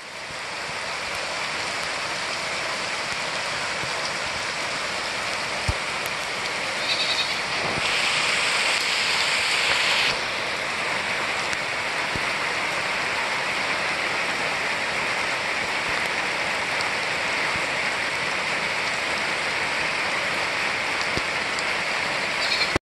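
Steady rain falling, an even hiss that grows louder for about two seconds around eight seconds in.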